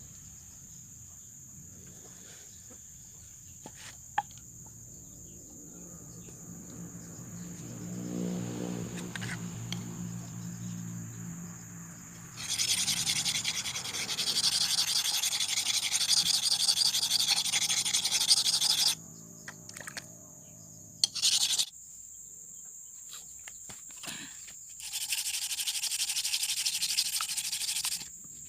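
Steel knife blade being worked against an abrasive, a rough scraping hiss in bursts: a long stretch of about six seconds, a brief touch, then about three seconds more near the end. Before the first burst a motor hum swells up and fades.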